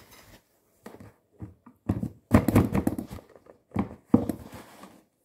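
Upturned aluminium bread pan being knocked on a wooden board, handled through an oven mitt, to free the baked loaf: a run of knocks and thuds, the loudest cluster between about two and three seconds in.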